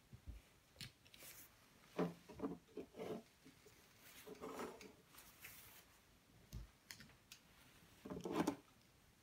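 Plastic Lego Technic parts being picked up and handled on a wooden tabletop: scattered light clicks, knocks and rubs at irregular intervals, the loudest cluster near the end.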